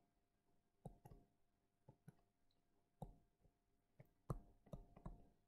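Faint, irregular taps and clicks of a stylus on a tablet screen while a word is handwritten, about seven scattered ticks over near silence.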